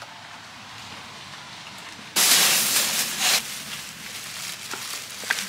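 Plastic grocery bags crinkling loudly for about a second as they are grabbed and lifted, then lighter rustling with a few small knocks.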